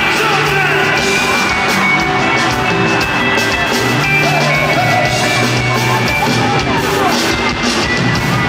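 Live afrobeats band playing loudly through the arena sound system, with crowd voices yelling and singing along over it.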